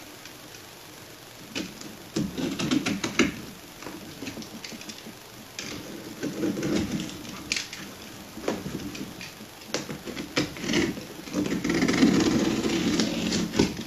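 Snap-off utility knife handled with a quick run of clicks, then its blade drawn through packing tape on a cardboard shipping box in several scraping strokes.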